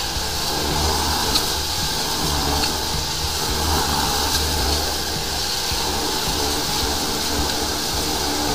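High-pressure sewer jetter at work: a steady hiss of the water jet running in the drain line, with a low hum from the jetter's motor and pump underneath.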